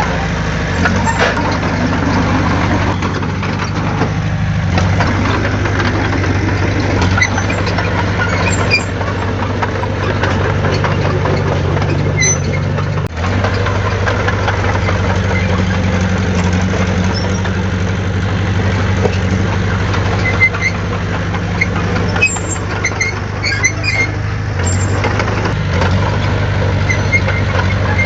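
Heavy diesel engine of earthmoving equipment running steadily at a low, even drone, with short high-pitched squeaks now and then.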